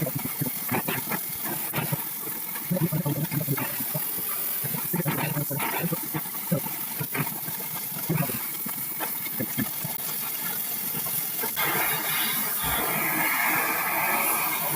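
Small irregular clicks and knocks, then, from about three quarters of the way through, the steady hiss of an oxy-acetylene torch flame.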